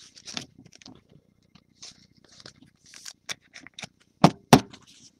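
A trading card and a rigid plastic top loader being handled, with short rustles, scrapes and small clicks as the card is slid into the holder. There are two sharp knocks about four seconds in, the loudest sounds here.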